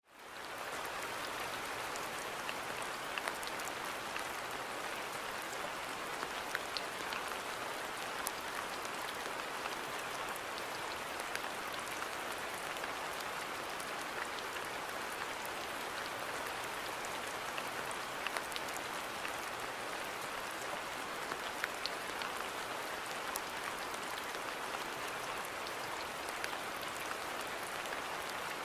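Steady rain falling in a garden, an even hiss with individual drops ticking here and there. It fades in from silence at the very start.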